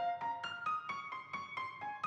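Background piano music: a quick run of plucky electric-piano notes, several a second.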